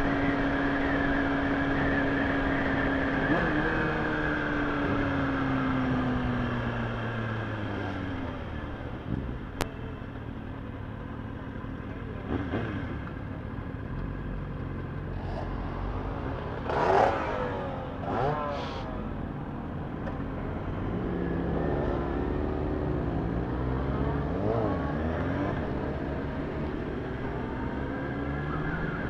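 Kawasaki ZX-6R's inline-four engine heard from on the bike, holding a steady note at first, then falling in pitch as the bike slows. About halfway through, two brief louder engine sweeps rise and fall. In the last third the engine note climbs again as it accelerates.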